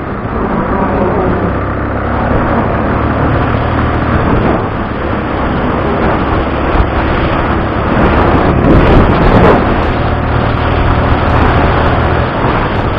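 Motorcycle cruising at highway speed: the engine runs steadily under a thick rush of wind and road noise, swelling louder about nine seconds in.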